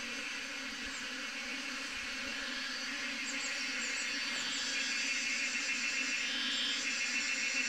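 Honeybee swarm buzzing: a steady, dense hum of many bees, growing slightly louder toward the end.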